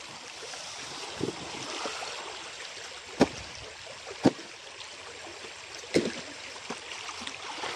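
Shallow stream water flowing and rippling over stones, with four sharp knocks spread through it, the loudest two about a second apart near the middle.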